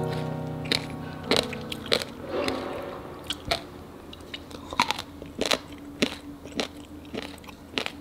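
Close-up crunching and chewing of seasoned dried radish strips, sharp irregular crunches a couple of times a second. Background music fades out over the first two seconds or so.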